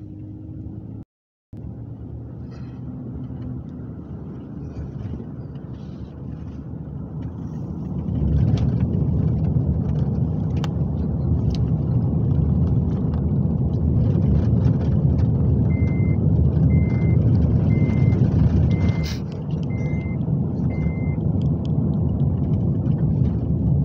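Road and engine noise inside a moving car's cabin, with a brief dropout near the start and growing louder about a third of the way in. Past the middle, six short electronic beeps sound about once a second, with a sharp knock among them.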